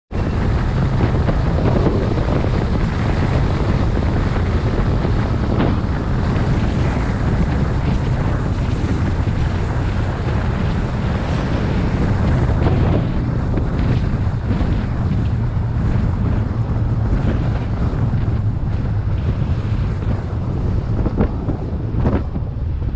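Wind rushing over an outside microphone at road speed, over a steady low rumble from the moving pickup and its tyres on the road. A few short knocks come near the end.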